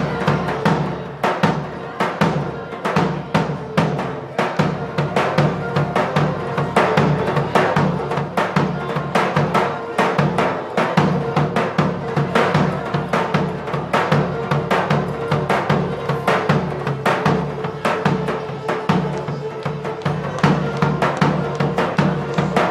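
Live folk music: a large double-headed davul drum beating a fast, steady rhythm under a sustained wind-instrument melody.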